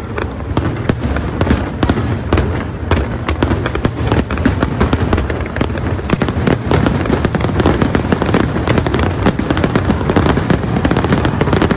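Fireworks display: many aerial shells bursting in quick succession, a dense crackling and popping with several bangs a second.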